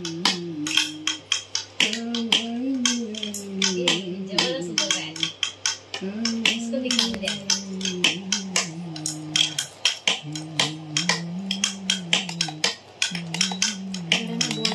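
Chopsticks clicking and scraping against a steel pot and plastic bowls as noodles are lifted out and served, many quick sharp clinks throughout. Under them runs a slow melody of held notes in the background music.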